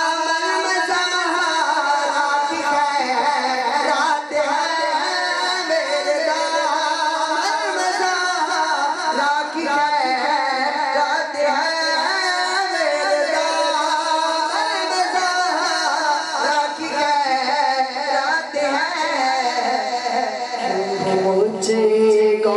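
A man singing a naat, a devotional praise poem, solo into a microphone over a PA system, in long melodic lines that bend and hold in pitch.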